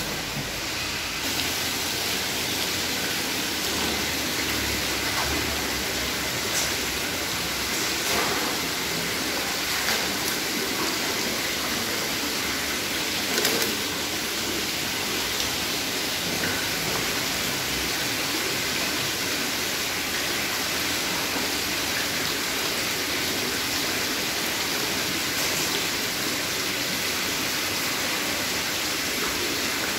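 Steady rush of water pouring and splashing into lobster holding tanks, with a few faint knocks.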